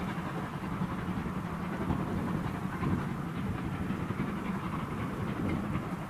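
LMS Jubilee Class steam locomotive 45596 Bahamas, a three-cylinder 4-6-0, working hard up a gradient with a train of coaches, its exhaust and running gear making a steady rumbling noise mixed with wind buffeting on the microphone.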